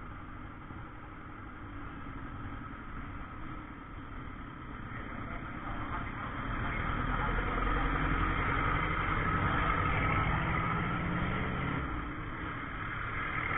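Street traffic: vehicle engines running at low speed. The sound grows louder for several seconds in the middle as bigger vehicles come close, then eases off.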